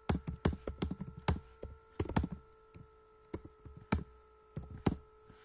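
Computer keyboard keys being typed in quick irregular clicks, dense at first and then more spaced out, stopping about five seconds in.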